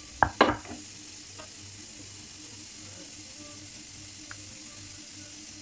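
A couple of sharp knocks of a wooden rolling pin on a wooden rolling board in the first half-second, then only a steady low hiss in the background.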